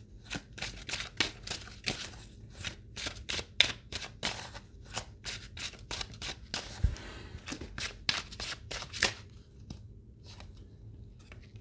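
A deck of cards being shuffled by hand: a rapid run of card clicks and flicks that thins out about nine seconds in, with one soft low thump about seven seconds in.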